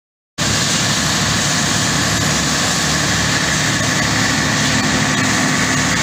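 Truck-mounted concrete pump's diesel engine running steadily during a concrete pour, a constant loud machine noise that cuts in a fraction of a second in.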